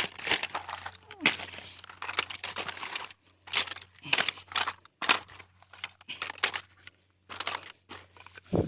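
Irregular crinkling and rustling, a run of short scratchy noises with brief pauses, as of something crisp being handled.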